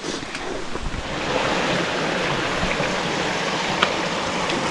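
Mountain stream rushing over rocks: a steady water noise that grows louder about a second in, with one sharp click near the end.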